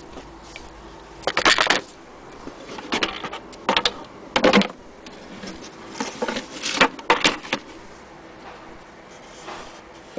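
Knocks and rattles of wood and metal as an antique Singer hand-crank sewing machine and its wooden carrying cover are handled. They come in several short clusters over about six seconds, the loudest near the start and about seven seconds in.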